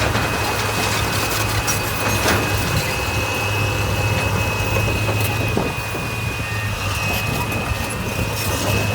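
Heavy earthmoving machine's diesel engine running steadily, with a thin steady high whine over the low engine hum.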